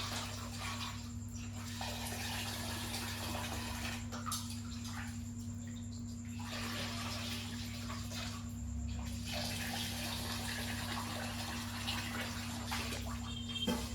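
A cat eating raw meat: wet, uneven chewing and smacking that comes and goes in stretches, over a steady low hum.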